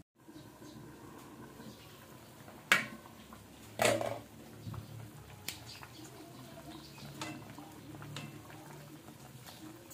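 Glass pot lid and metal kitchen utensils clattering: two sharp clacks about three and four seconds in, the first the loudest, then a few lighter knocks of tongs in the pot.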